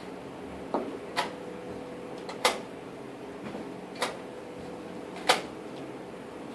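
Sharp clicks and knocks of rapid chess being played: pieces set down on the board and the clock pressed, five in all at uneven gaps of about one to one and a half seconds.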